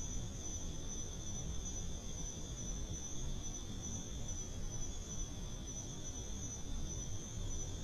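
Steady chorus of night insects, a continuous shrill at two pitches, over a constant low background rumble.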